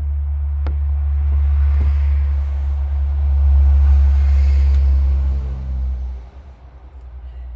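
A small engine running steadily with a loud low rumble, which drops off sharply to a faint hum about six seconds in.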